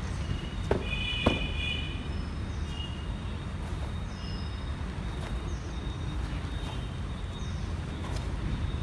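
Open-air ambience with a steady low rumble and birds chirping in short repeated calls. Two sharp knocks come about a second in.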